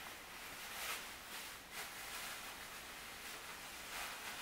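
Distant freight train of covered grain hopper cars rolling past: a faint steady hiss of wheels on rail, with a few soft clacks at irregular intervals.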